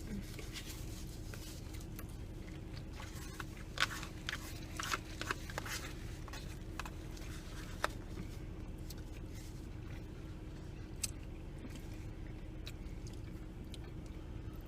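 Close-miked eating: chewing and biting into food, with a cluster of sharp crunchy clicks about four to six seconds in and a few single ones later, over a steady low hum.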